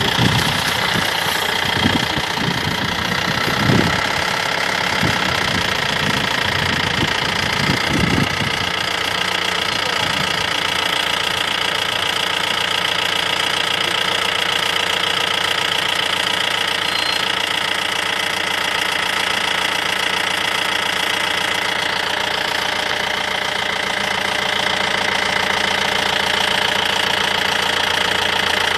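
A vehicle engine idling steadily, with a few low thumps in the first eight seconds or so.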